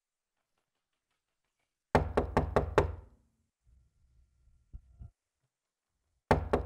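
Quick knocking on a wooden hotel-room door: five fast raps about two seconds in, then knocking again near the end. Faint rustling of bedding comes in between.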